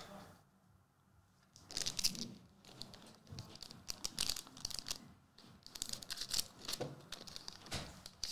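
Foil wrapper of a Magic: The Gathering collector booster pack crinkling and tearing as it is opened by hand, a dense crackle of quick clicks that starts about two seconds in and keeps going.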